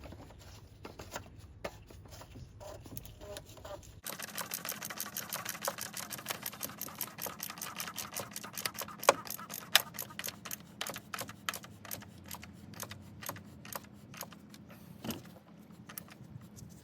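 Ratchet wrench clicking in quick, fairly regular strokes as the oil filter housing cap is screwed back down. Fainter scattered handling clicks come first.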